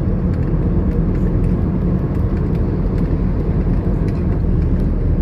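Heavy storm rain and strong wind, with a steady low rumble of wind buffeting the microphone and scattered sharp clicks over it.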